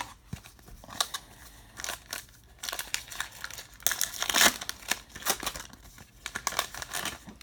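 Baseball card pack wrapper being torn open and crinkled by hand: a run of irregular crackles, loudest about four seconds in.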